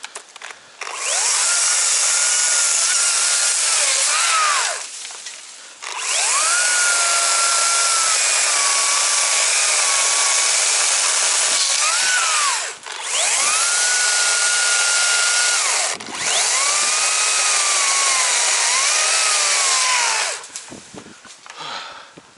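Chainsaw cutting into a thick fallen tree trunk in four long runs, each a few seconds long, with short pauses between them. Its whine wavers in pitch as the cut loads the chain.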